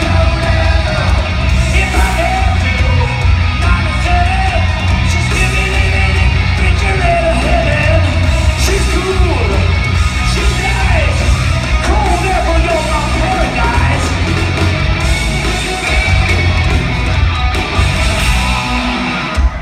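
Live hard rock band in a large hall: electric guitars, bass and drums under a lead vocal with sung and yelled lines, heard from far back in the audience.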